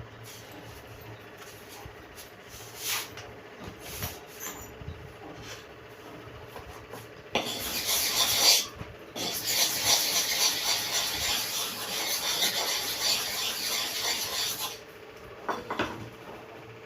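Steel hair clipper blade rubbed back and forth on a sharpening stone to flatten its inner face: a few light scrapes and knocks, then about seven seconds of steady gritty scraping with a brief break near the start.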